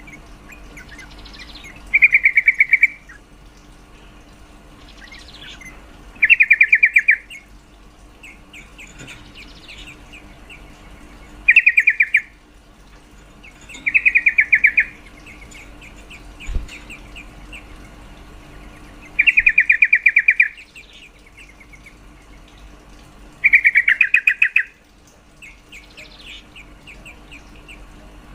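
Female yellow-vented bulbul (trucukan) calling to a male: six loud, fast rattling bursts about a second long each, a few seconds apart, with softer chirps in between.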